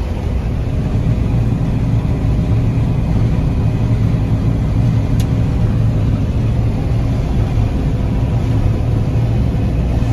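Combine harvester running steadily while harvesting soybeans: a constant low engine drone with a faint steady whine above it.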